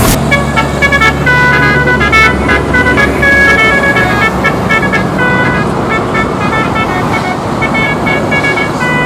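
Telolet horn, a multi-tone musical air horn, playing a long run of short notes that jump between pitches in a melody. Traffic noise and a vehicle engine run underneath.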